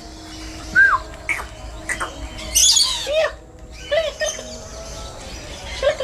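Rainbow lorikeets calling: a string of short screeches and chirps, the loudest near one second in and again about two and a half seconds in.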